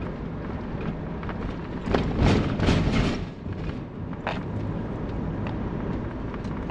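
Motorhome driving, heard from inside the cab: a steady engine and road drone, with a burst of rattling and clatter about two seconds in and a single sharp knock a little after four seconds.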